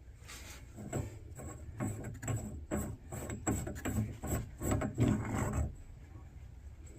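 An irregular series of knocks and scrapes from shower valve parts being handled and worked on, stopping about two-thirds of the way through.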